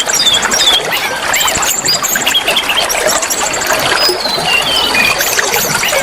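Oriental magpie-robin (kacer) birdsong mixed with other bird notes: a busy run of whistles, slurred and arching notes and fast high trills, over a steady rush of flowing water.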